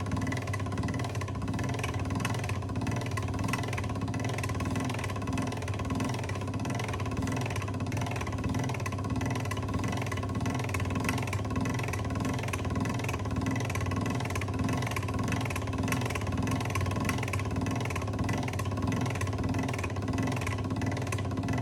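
Electric noodle-pressing machine running steadily, a motor hum with a regular pulse about twice a second.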